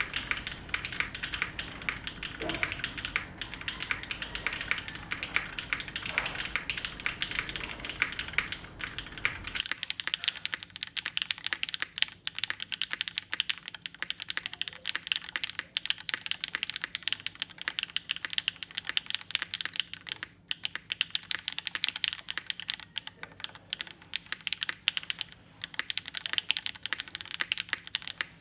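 Continuous fast typing on a Rose TKL custom mechanical keyboard with a full aluminium plate, BCP switches on 60 g springs and GMK doubleshot keycaps: dense, rapid keystrokes with quick clacks. A low background rumble under the typing stops about ten seconds in.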